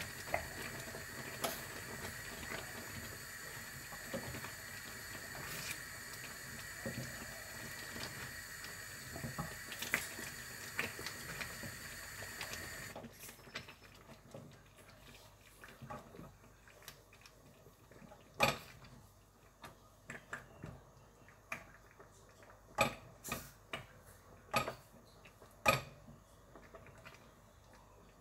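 A wooden spoon stirring thick food in a saucepan on a gas stove, with a steady hiss under it that stops abruptly about halfway. In the quieter second half the spoon knocks sharply against the pot several times.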